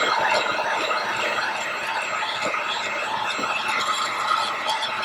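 Heat gun blowing hot air steadily onto the screen to soften its adhesive, with faint clicks from the glass being pried.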